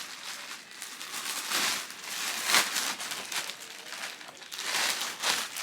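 Plastic packaging and clothing being handled, crinkling and rustling in uneven bursts.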